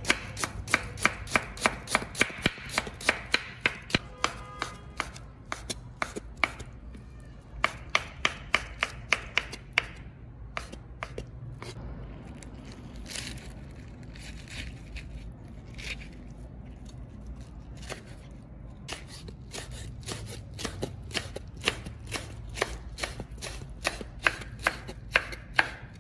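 Cleaver chopping on a wooden cutting board, about three to four quick knife strikes a second as ginger is cut into strips and then mushrooms are sliced. The strokes thin out and soften for a while midway, then come fast again near the end.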